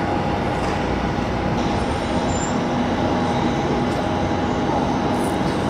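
Boeing 737-800 jet engines running steadily: a constant rumble with a thin steady whine over it.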